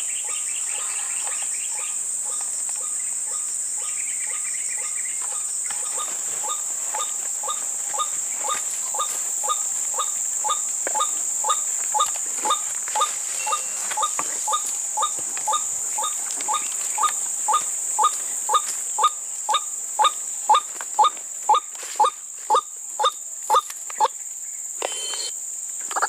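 White-breasted waterhen calls, a regular series of notes at about two a second that grows steadily louder before stopping, over a steady high insect drone. Near the end there is a single sharp report, taken to be the air-rifle shot.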